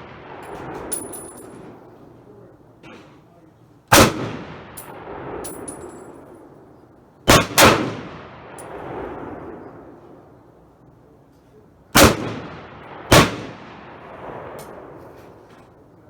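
Rifle shots at an outdoor range: five sharp reports with long echoes, a single shot, then a quick pair, then two more about a second apart. Light metallic clinks come between the shots.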